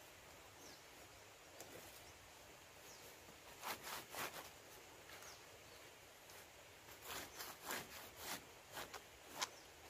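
Faint rustling and crinkling of green leaves being handled and wrapped around a kithul palm flower cluster, in short bursts about four seconds in and again over the last three seconds.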